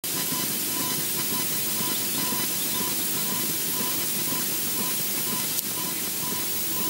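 Steady hiss of a nest camera's microphone feed, with a faint high beep repeating two or three times a second and a single sharp click about five and a half seconds in.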